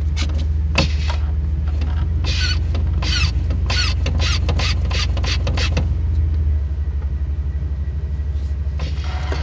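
Vehicle engine idling in Park with a steady low rumble, overlaid from about a second in until about six seconds by a run of sharp, irregular creaks and squeaks. About six and a half seconds in, the idle note drops a little and turns pulsing and uneven.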